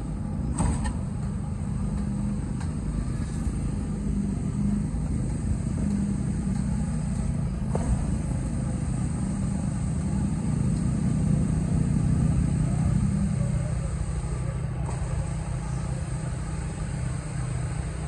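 Steady diesel engine drone of concrete pumping machinery pushing concrete through the pipeline to the distributor, with a few sharp knocks about every seven seconds.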